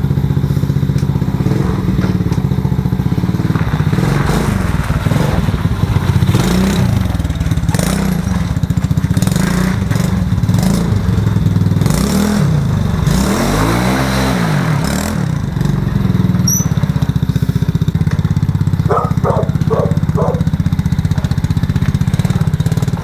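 A 110 cc ATV's single-cylinder four-stroke engine runs as the quad is ridden. It revs up and drops back several times, with one long rise and fall in pitch about 13 to 15 seconds in.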